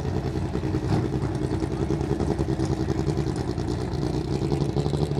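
Lancia Delta Integrale RR1 EVO drag car's heavily modified 2.0-litre turbocharged four-cylinder idling with a steady, uneven beat and no revving.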